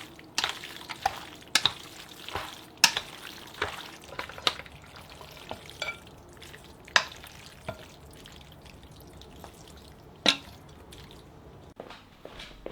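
A bowl of oil-splashed noodles being stirred and tossed with its seasoning. Irregular sharp clicks and knocks against the bowl come over a soft, wet rustle.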